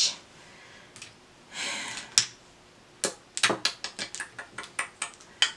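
Light clicks and taps of makeup containers and a brush being handled: a soft rustle, one sharp click, then a quick, uneven run of small taps lasting a couple of seconds.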